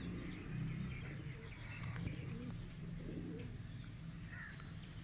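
Domestic pigeons cooing a few times over a steady low hum.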